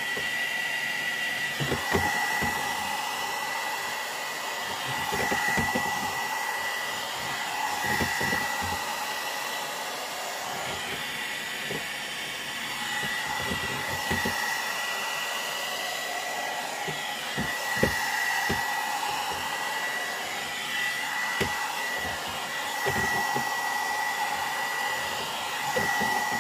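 Hot air brush (one-step hair dryer and styler) blowing steadily, its motor giving a steady high whine over the rush of air, with irregular low thumps throughout.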